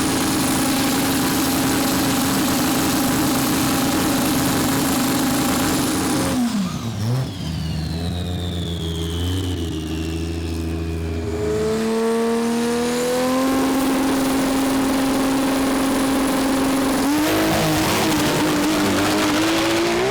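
Drag race car engine at high revs: a steady high note for about six seconds, then the throttle comes off and the pitch drops sharply while a high whine winds down. Engine revs then climb again in steps, ending on a rising note.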